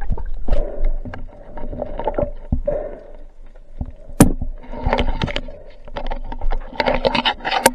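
Underwater water noise against the camera: irregular swishing with scattered clicks, a sharp click about four seconds in and another near the end.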